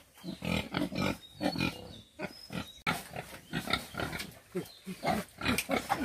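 Pigs grunting, in many short irregular grunts.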